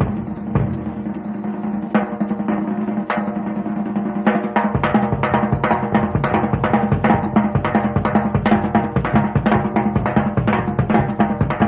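Live rock drum solo on a full drum kit: scattered snare and tom hits at first, then, about four and a half seconds in, a dense run of rapid strokes around the kit with the bass drum joining in.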